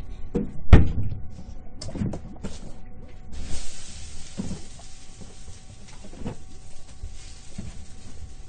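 A series of scattered thumps and knocks, the loudest about a second in. A steady hiss sets in suddenly about three seconds in and continues under them.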